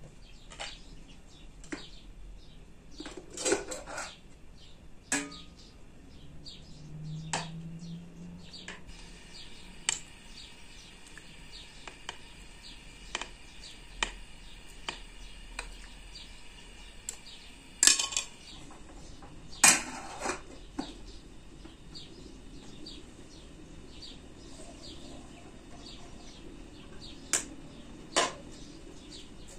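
Scattered clicks and clinks of a kitchen knife cutting on a plate and of dishes being handled as tomatoes are sliced, with a few sharper clacks standing out.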